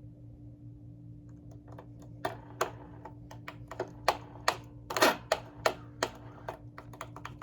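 Irregular sharp clicks and taps of hands and an oil can working around a Hoover Convertible upright vacuum's wheels while oiling them, starting about a second and a half in and growing louder and more frequent, over a steady low hum.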